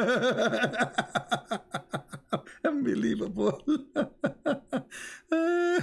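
A man laughing in quick, rapid bursts, then a short steady held tone near the end.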